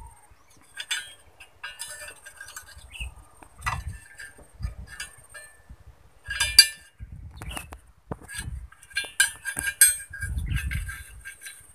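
Thin steel rod being bent by hand around steel pins on a wooden bending jig: irregular metallic clinks and scrapes of the rod against the pins, with a few duller knocks.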